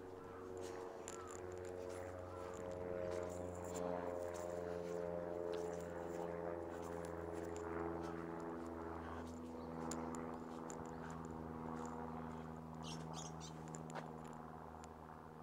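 A steady low mechanical hum of several tones, like a distant engine, drifting slowly lower in pitch. There are scattered faint clicks and a few brief high chirps near the end.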